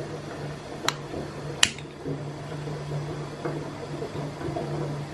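Two sharp clicks about three-quarters of a second apart, about a second in, from a long-nosed utility lighter being triggered at a jar candle's wick, over a steady low hum.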